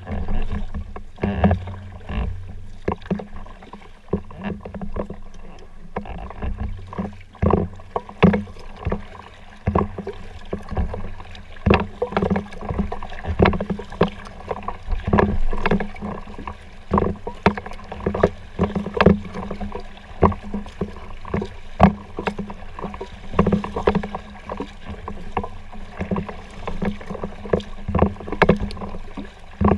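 Kayak paddle splashing in the water with each stroke: irregular splashes, drips and light knocks, about one or two a second, over a steady low hum.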